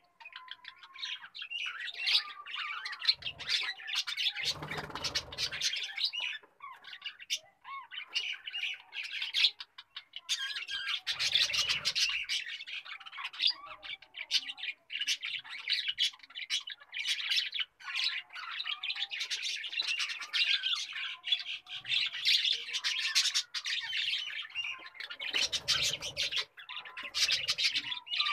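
Many birds chattering at once: a dense, unbroken stream of chirps and squawks, with a few brief low rumbles mixed in.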